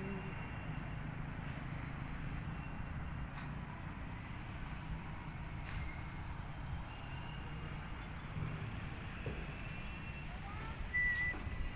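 Motorcycle tricycle running steadily on the road, a low engine rumble with road noise, and a few faint high chirps over it.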